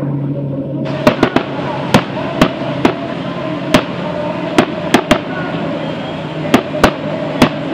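Firecrackers going off, a dozen or so sharp bangs at irregular intervals, over the steady drone of many outboard-powered speedboats running at full throttle.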